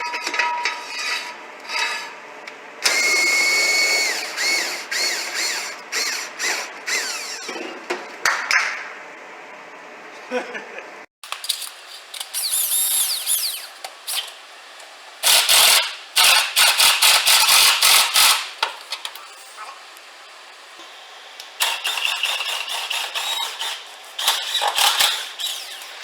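Hand and power tools at work on a car's wheels as it is lowered and the lug nuts tightened: bursts of rapid rattling strokes and some metallic squeaks, in several separate takes.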